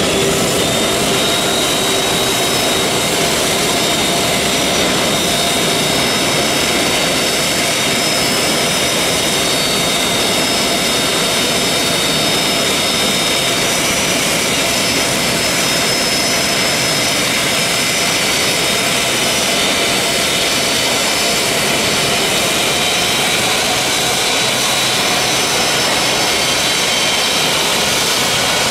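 Twin General Electric CF6-80E1 turbofans of an RAAF Airbus A330-200 MRTT running at taxi power, a steady jet whine with several thin, high whistling tones over a loud rush.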